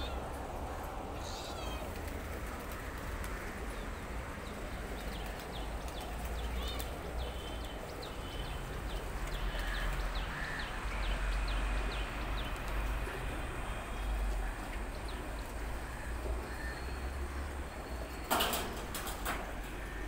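Birds chirping now and then over a steady low wind rumble, with a brief flurry of pigeon wing flaps near the end.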